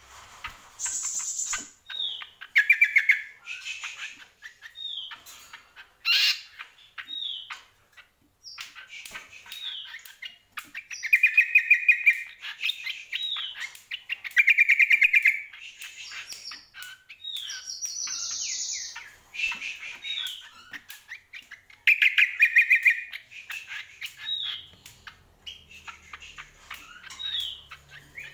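A caged cucak kombo, a small honeyeater, singing a lively song of short down-slurred whistles and loud rapid trills, phrase after phrase with short pauses, plus a few higher buzzy notes.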